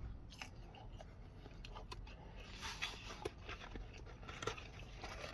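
Faint chewing with small wet mouth clicks as a person eats sauced chicken strips.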